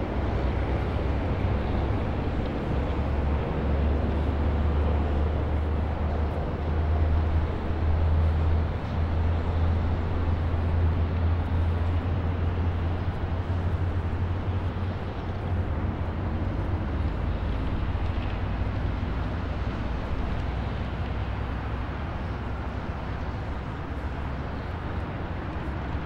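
A car driving: steady road noise with a strong, deep low hum that is strongest in the first half and eases off toward the end.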